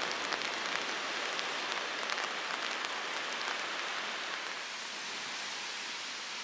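Steady hiss of small waves breaking and washing up a sandy beach in light drizzle, with fine ticks of raindrops in the first few seconds. The wash eases a little after about four seconds.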